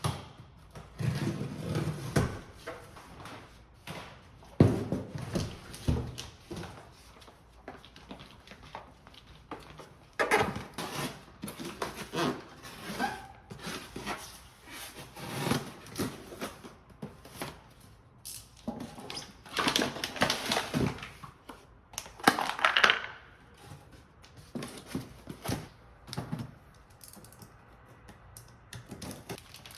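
Packaging being handled and opened by hand: irregular rustling and crinkling with light taps and clicks, coming in busier spells with quieter gaps between.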